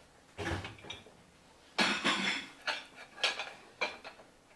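Dishes and cutlery clinking and clattering as they are taken out of a dishwasher: a short clatter about half a second in, a louder clatter near two seconds, then a few lighter clinks.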